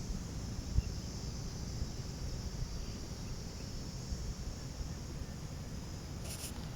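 Steady high insect drone, like crickets, over a low rumble of wind on the microphone, with a few faint clicks near the end.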